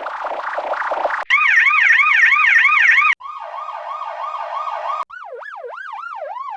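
A police siren sound effect in a string of digitally altered versions, switching abruptly about every two seconds. First comes a noisy, distorted version, then a louder, higher-pitched fast wail. After that a buzzy version sweeps up over and over and drops back each time, and last come slower, wider swoops that dip lower in pitch.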